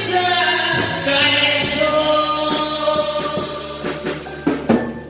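Live band music: a singer sings and holds a long note over keyboard and drum kit, with a short drum fill near the end.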